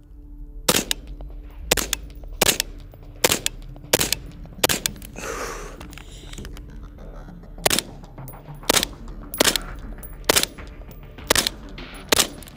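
Semi-automatic AR-style rifle firing single shots at a steady pace, about one a second. Six shots, a pause of about three seconds, then six more.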